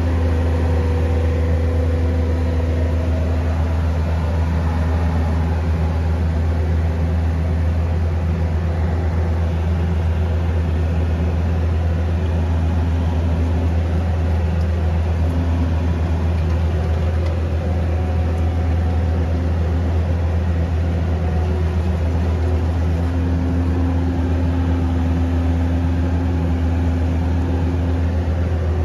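Engine of a nursery work machine running steadily with an even, low hum.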